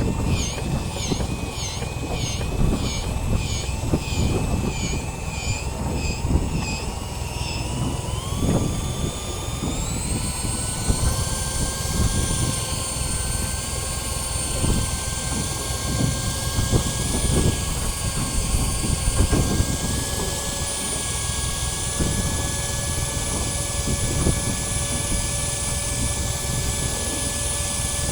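A boat's motor runs steadily over a low rumble. About a third of the way through its whine rises in pitch, as if speeding up, and then holds at the higher pitch.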